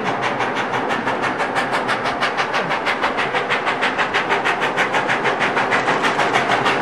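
Ex-Canadian National 0-6-0 steam locomotive No. 7470 working up a grade, its exhaust beating in rapid, even chuffs about five or six a second, growing slowly louder as it approaches.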